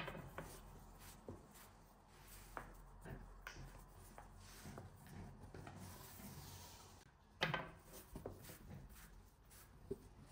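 Faint rubbing and rolling of a long wooden rolling pin and a thin sheet of dough over a cloth-covered table, with scattered light taps and one louder knock about seven seconds in.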